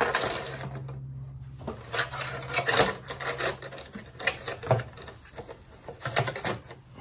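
Irregular plastic clicks, taps and rattles of a thin polycarbonate RC truck body shell being handled and pressed down onto a Traxxas Rustler 4x4 VXL chassis.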